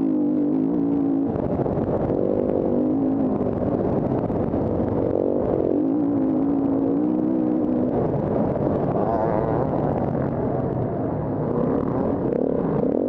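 KTM 350 Six Days enduro bike's single-cylinder four-stroke engine being ridden hard off-road, revs rising and falling again and again as the throttle is worked, over a constant rattle from the ride.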